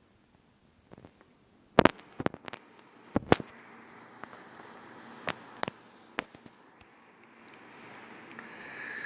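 Handling noise on the recording device: a string of sharp clicks and knocks, a few close pairs, as a charger is connected to the low-battery camera, with a faint hiss growing near the end.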